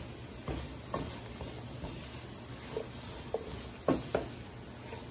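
A spatula stirring sliced mushrooms and green banana in a granite-coated nonstick pan, with soft irregular scrapes and knocks against the pan over a steady sizzle of frying.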